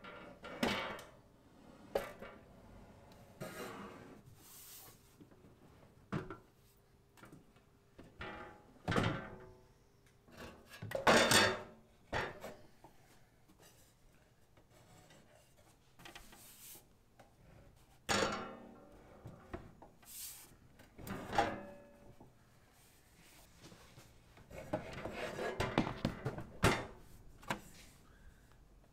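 Irregular thuds, knocks and scrapes of an xTool P2 laser cutter's housing being handled and fitted together, with a longer stretch of something sliding or rubbing into place near the end.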